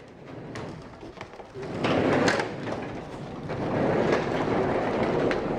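Haas sectional garage door moved by hand, its rollers rumbling along the tracks, getting louder about two seconds in. The door is spring-balanced, so it moves easily.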